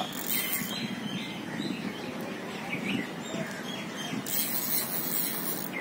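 Small birds chirping in a quick run of short calls over steady outdoor background noise, with a stretch of high hiss just after the start and another from about four seconds in.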